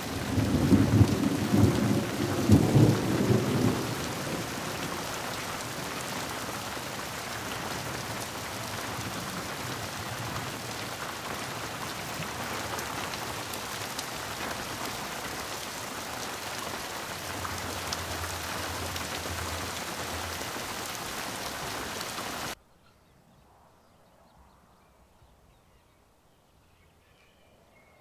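Steady hiss of rain, with a heavy low rumble during the first few seconds. About 22 seconds in it cuts off suddenly, leaving near silence.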